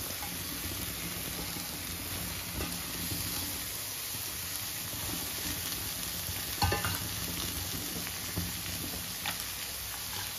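Beans sizzling as they are stir-fried with spices in a pan, stirred with a spatula that scrapes and taps against the metal. One louder clank comes about two-thirds of the way through.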